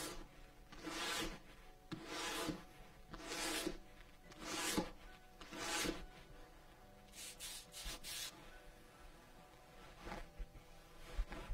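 A 220-grit sanding stick rubbing along the cut edge of a leather strap in one direction, about one even stroke a second, then a few short quick strokes and a pause before a last one. This is edge sanding to lay the fibres down for a smooth, glassy edge.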